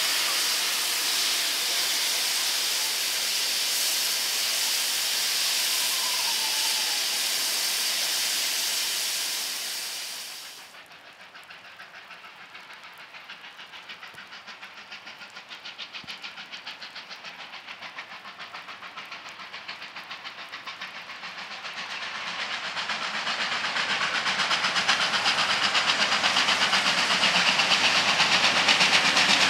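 Victorian Railways R class Hudson steam locomotive R711: loud steady steam hiss from the standing engine, cut off suddenly about ten seconds in. Then the locomotive is heard pulling away at a distance, a rapid run of exhaust beats that grows steadily louder as it approaches.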